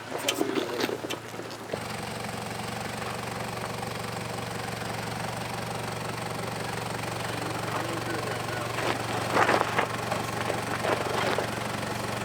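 Off-road truck engine running steadily at low revs while crawling over rock, with short bursts of crunching and cracking near the start and again about nine to eleven seconds in.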